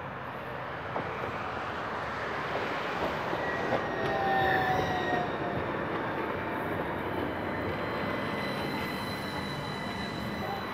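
Tram pulling into the platform and braking to a stop: a rolling rumble that swells to its loudest about four to five seconds in, with thin high squeals through the middle, then a steady high whine as it stands at the stop.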